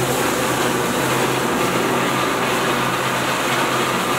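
Cold pyro spark fountain spraying sparks with a steady, even hiss.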